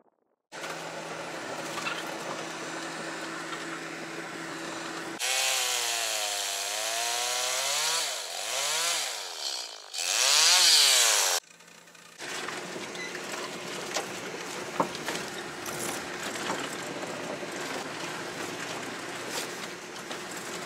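A chainsaw revving up and down as it cuts through a fallen tree, the pitch rising and falling with the load, with its loudest burst a little before it stops. Before and after it, a steady engine hum; in the later stretch a vehicle is driving on a snowy road.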